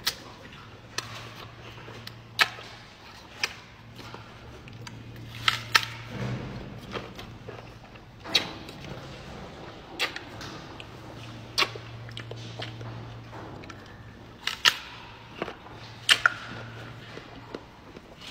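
A gorilla chewing apple: sharp, irregular crunches about once a second, over a steady low hum.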